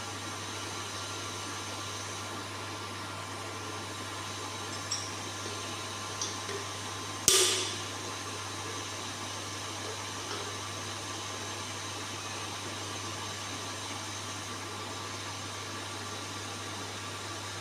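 Steady electrical and mechanical hum of CNC shop machinery, with a few light clicks and one sharp knock with a short ring about seven seconds in, made while the workpiece is being handled for setup.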